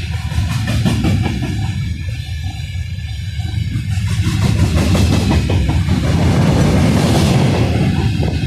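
Long freight train rolling past behind a 3ES4K 'Donchak' electric locomotive: a steady rumble of wagon wheels on the rails, with runs of clicking over rail joints, swelling louder with a hiss near the end.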